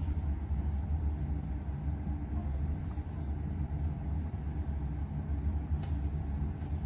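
A steady low rumble with no clear events, and one faint click near the end.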